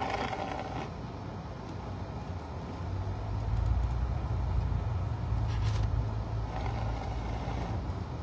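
Steady low rumble of a vehicle cabin on the move, growing louder about three seconds in.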